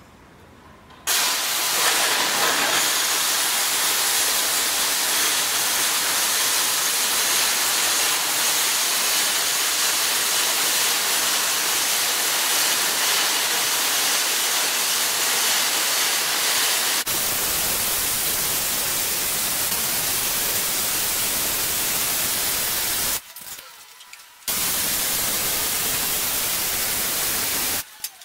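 Stick-welding arcs on a steel pipe joint, a loud steady hiss that starts about a second in, breaks off briefly about two-thirds of the way through, then resumes.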